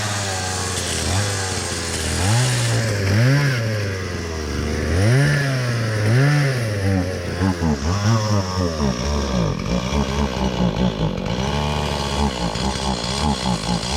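Two-stroke chainsaw engine revved up and down repeatedly, about once a second. From about eight seconds in it drops to a lower, uneven, fluttering run.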